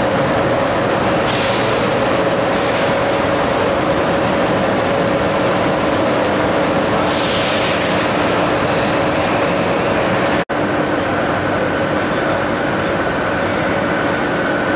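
Electric trains standing in a station under a roof: a steady hum with a couple of pitched tones from Renfe high-speed trainsets, and short hisses about a second in, near three seconds and about seven seconds in. About ten seconds in the sound breaks off for an instant, and a Renfe regional electric multiple unit's steady hum follows, with higher whining tones.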